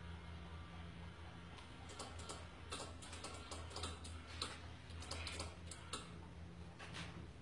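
Faint, irregular clicking and ticking from the small motor and gearing of a homemade sun-tracking solar panel as it turns the panel toward a light, over a steady low hum.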